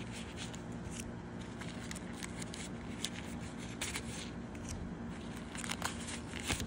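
Faint rustling, with small scattered clicks, of cards in decorated card envelopes sliding against the thin fabric of a zippered wallet as they are pushed in and pulled out.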